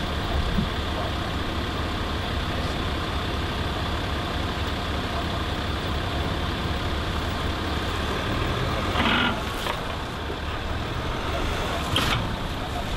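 2014 Range Rover Sport's engine running steadily at low revs as it crawls over rock, with two brief noises about nine and twelve seconds in.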